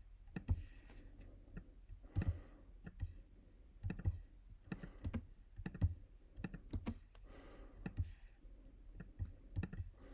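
Faint, irregular clicks of a computer mouse, roughly two a second.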